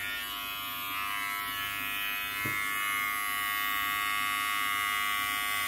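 Battery-powered Remington B3 hair trimmer running with a steady buzz while it cuts forearm hair.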